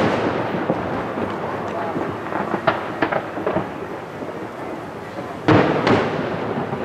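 Aerial fireworks shells bursting at a distance, their booms echoing like thunder. A loud boom comes right at the start and two more about five and a half seconds in, with smaller pops and crackles in between.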